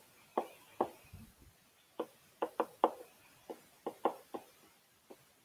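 A pen stylus tapping and clicking against a tablet screen during handwriting: about a dozen light, sharp taps at an irregular pace.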